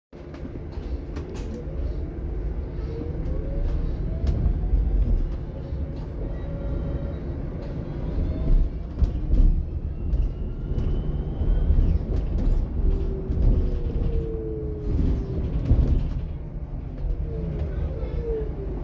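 Inside a Volvo BZL battery-electric double-decker bus on the move. There is a steady low rumble of road and body noise with scattered knocks and rattles. The electric drive's whine glides up and down in pitch as the bus speeds up and slows.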